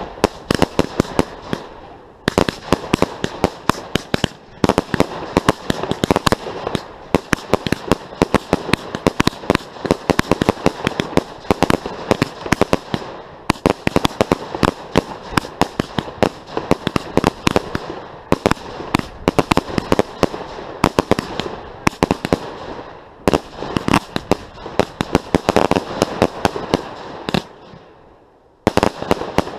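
Ground-fired firework cakes (multi-shot barrages) firing at close range: a rapid, continuous volley of sharp cracks and bangs, many a second. The volley eases off near the end, then comes one last short burst.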